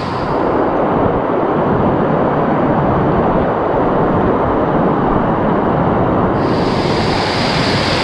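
Waterfall close by, a loud steady rush of water. It turns muffled just after the start and clears again about six seconds in.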